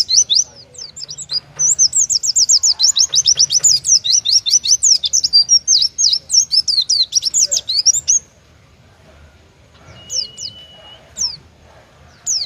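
Oriental white-eye (pleci) singing its rapid 'tembakan' burst: a fast string of high, sweeping chirps, about ten a second, held for some six seconds. It then breaks off into a few separate notes and a short steady whistle.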